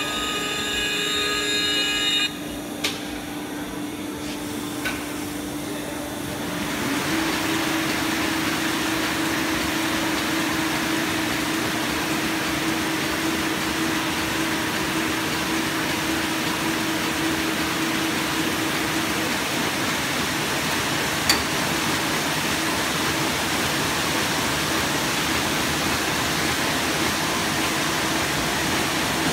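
A tone sounds for about two seconds, then the Muller Martini Bravo Plus Amrys saddle stitcher starts up, coming up to speed about six seconds in and running steadily with a constant low hum. A single sharp click is heard about two-thirds of the way through.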